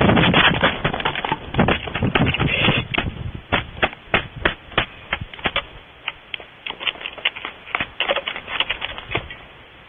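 Owls moving about inside a wooden nest box: a loud flurry of wing flaps and scrabbling around the start as a bird flaps off, then scattered sharp clicks and taps of talons on the box, thinning out toward the end.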